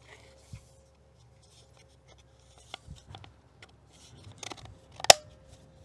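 Hard plastic parts of a Stihl string trimmer head being handled and pressed together: faint scattered ticks and rubs, then one sharp snap about five seconds in as the new face locks onto the head.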